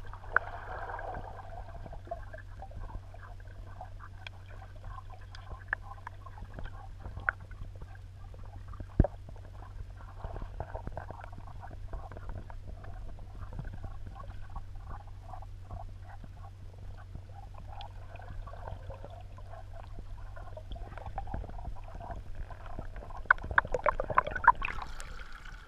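Underwater swimming-pool sound heard through a submerged camera: a steady low hum with scattered sharp clicks and crackles. Near the end there is a louder flurry of clicks and splashy noise.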